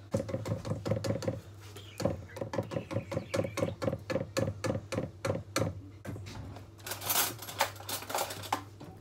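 A utensil beating cake batter in a mixing bowl, knocking against the bowl about five times a second with a short ring on each stroke, pausing briefly after the first second and a half. Near the end the beating gives way to a rougher scraping round the bowl.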